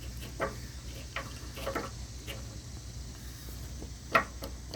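Scattered light metal clicks and taps from handling the mower deck wheel's bolt and hardware by hand, with a sharper click about four seconds in, over a low steady hum.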